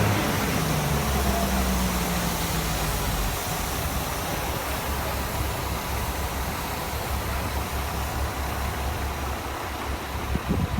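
An engine slows, its pitch falling over the first couple of seconds, then runs on as a steady low rumble. A few knocks sound near the end.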